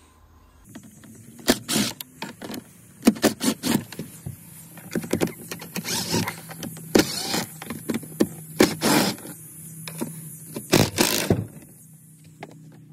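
Small cordless driver whirring in repeated short bursts as it backs screws out of the aluminium hinges of a pontoon boat seat's live-well lid, stopping shortly before the end.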